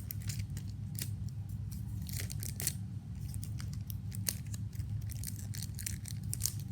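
Panini Adrenalyn XL foil trading-card packet being torn open and crinkled: a string of irregular sharp crackles, over a steady low hum.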